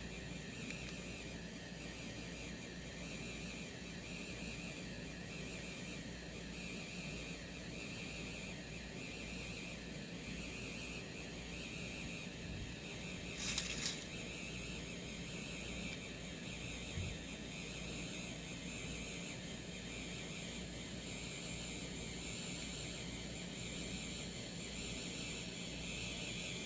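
A 3D pen's filament-feed motor running steadily as it pushes PLA filament out, a thin steady whine, with one short click about halfway through.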